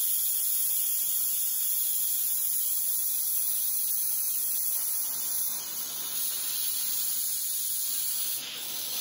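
Instant Pot Ultra electric pressure cooker venting steam through its release valve in a steady, loud hiss that eases a little in the last few seconds. This is a quick release started while the float pin was still up, so the pot is still at full pressure.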